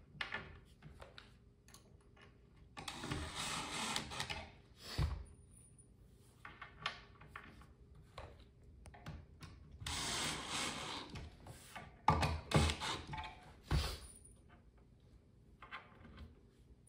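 Cordless drill driving screws into the shelf panels of a flat-pack shoe rack, in two short runs about a second and a half long, one about 3 s in and one about 10 s in. Knocks and clatter of the panels and drill being handled come in between and near the end.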